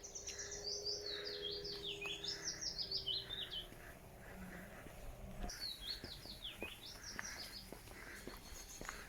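A songbird singing two phrases, each a quick run of high notes falling in pitch. The first lasts about three seconds, and the second comes about halfway through.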